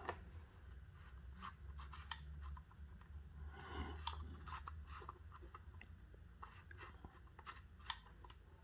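Quiet handling of a small electric hot plate: scattered light clicks and rubbing as hands turn and move the unit, over a faint low hum.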